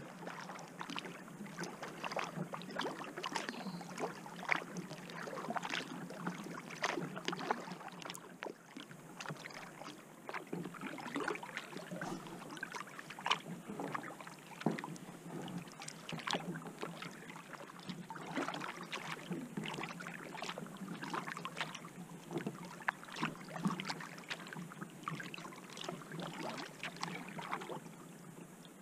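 Kayak paddle dipping and pulling through calm river water: a continuous, irregular patter of small splashes and drips from the blades.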